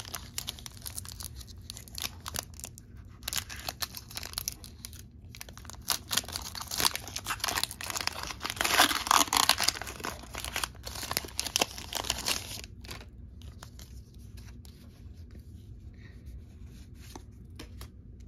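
Foil wrapper of a Pokémon Chilling Reign booster pack being torn open along its crimped top and crinkled, crackling loudest about nine seconds in and growing quieter and sparser after about twelve seconds.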